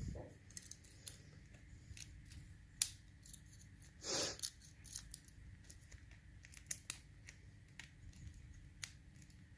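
Faint metallic clicks and ticks of a pin-tumbler lock being worked by hand with its key and tools, with one short, louder scrape about four seconds in.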